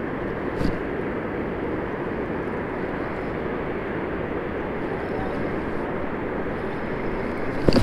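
Steady rushing noise of water pouring through the dam's spillway gates, mixed with wind on the microphone. A sharp knock near the end.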